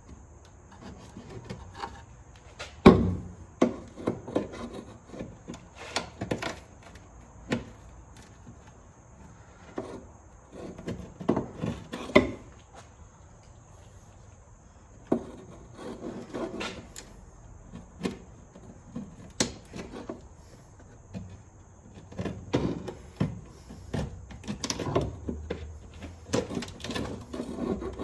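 Irregular knocks, clicks and scraping of hand tools and metal parts being handled during work under a car, with the sharpest knock about three seconds in. A faint steady high whine runs underneath.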